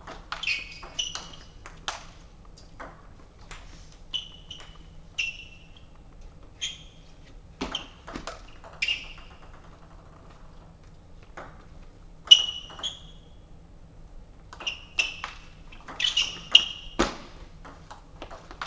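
Table tennis ball clicking off the table and the players' bats in short service-and-return rallies, with a lull of a couple of seconds around the middle. A few duller thumps from feet on the floor are mixed in.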